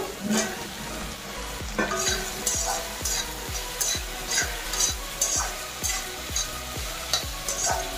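Duck meat and cut potato pieces sizzling in oil in a wok, stirred with a wooden spatula that scrapes and knocks against the pan two or three times a second.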